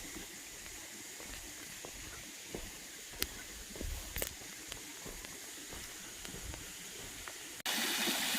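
Faint outdoor hiss with a few soft knocks, then, after an abrupt cut near the end, the louder steady rush of a small waterfall.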